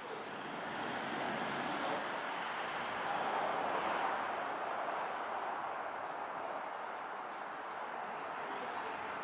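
Outdoor background noise, a steady rushing haze that swells about three to four seconds in and then eases off, with a few faint high chirps now and then.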